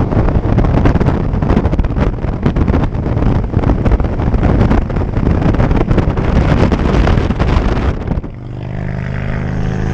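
Wind blasting over the microphone of a moving vehicle at highway speed, a loud rough rush mixed with road and engine noise. A little after eight seconds it gives way to a quieter, steady engine hum.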